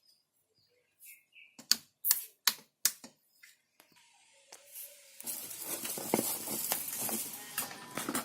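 Sharp button clicks, four in quick succession about two to three seconds in, then a steady hiss from the siren module's amplifier and speaker from about five seconds in, as its MP3 mode starts up.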